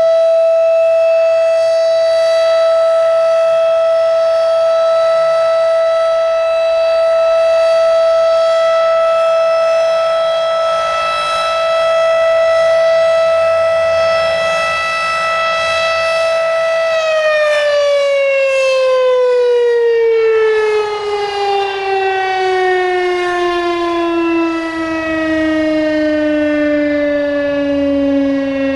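Federal Signal Thunderbeam RSH-10 outdoor warning siren sounding its steady alert tone. A little over halfway through, the tone begins falling steadily in pitch as the siren winds down at the end of the alert.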